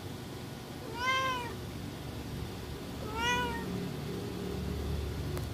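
Young tuxedo kitten meowing twice, about two seconds apart, each meow rising and then falling in pitch. The meows are aimed at a person for attention.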